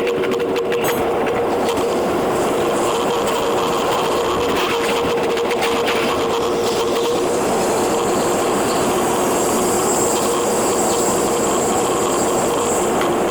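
Running noise of a JR East E721 series electric train, heard from the cab and sped up tenfold: a steady, dense rush with a held tone.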